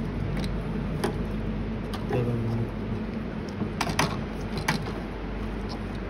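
A handful of light clicks and taps as the inverter's circuit board is handled and pried against its aluminium heatsink, the loudest about four seconds in, over a steady low hum.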